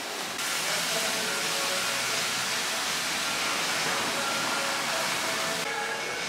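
A steady hiss of rushing noise that cuts in about half a second in and stops abruptly near the end, with a few faint steady tones under it.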